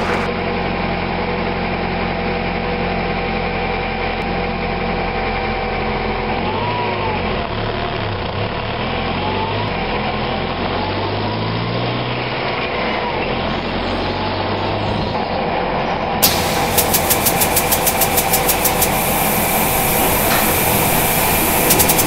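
Cartoon truck engine sound effect running steadily, its pitch wavering up and down from about six to fifteen seconds in. About sixteen seconds in the sound turns brighter, with a rapid run of clicks for a few seconds.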